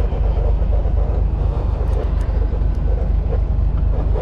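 Fishing boat's engine running at idle, a steady low rumble, with wind and sea noise on the microphone.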